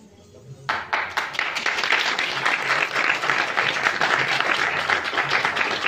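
Audience applauding: many people clapping, starting suddenly under a second in and keeping up a steady, dense clatter.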